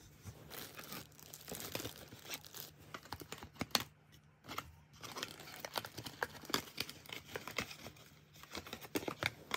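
Crinkling and rustling of plastic and cardboard packaging being handled by hand: a dense run of irregular crackles, with short pauses about halfway through and near the end.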